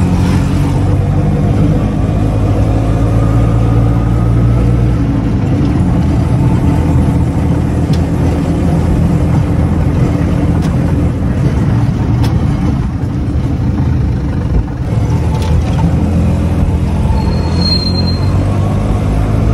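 Motor vehicle engine running steadily while the vehicle is driven along.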